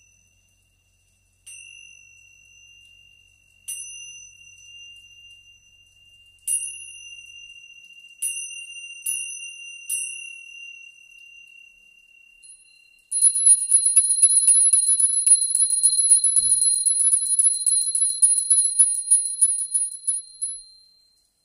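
Tingsha, small Tibetan hand cymbals on a cord, struck together six times to open the meditation, each strike leaving a long ringing tone that slowly fades. About 13 seconds in a brighter, higher-pitched ring starts, trembling rapidly for about eight seconds before it stops.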